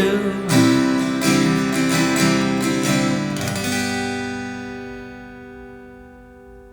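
Acoustic guitar strumming the final chords of a song. The last chord, struck about three and a half seconds in, is left ringing and slowly fades out.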